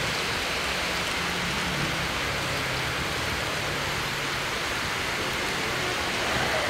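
Heavy rain falling steadily on a flooded street, a constant even hiss of rain on standing water.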